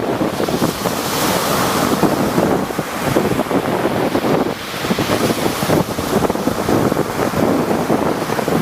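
Rough sea with waves breaking and surging in a continuous wash that swells and eases, the first surge strongest about a second in. Wind buffets the microphone.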